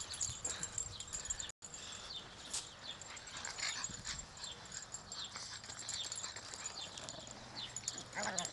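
Pekingese puppies playing, with scattered short high-pitched yips and squeaks.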